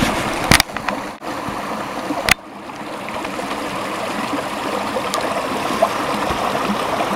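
A creek running with a steady rush of water, broken by two sharp clicks in the first two and a half seconds.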